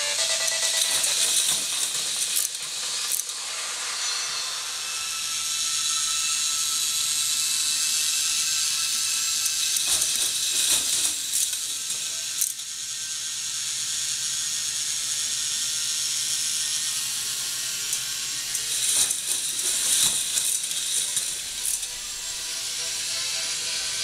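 Motor-driven K'nex roller coaster chain lift running: plastic chain links clattering steadily over the gears, with a few sharper clicks along the way.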